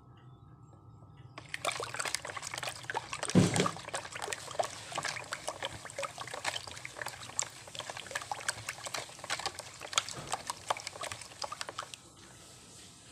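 Plastic spoon stirring runny egg-custard tart filling in a plastic bowl: quick sloshing with rapid clicks of the spoon against the bowl. It starts about a second and a half in and stops a second before the end, with one louder knock about three seconds in.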